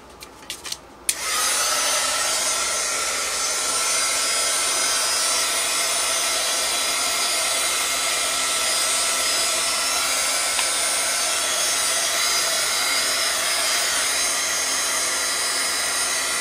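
A handheld dryer switches on about a second in and runs steadily with a faint whine, blowing on freshly sprayed alcohol inks to dry them.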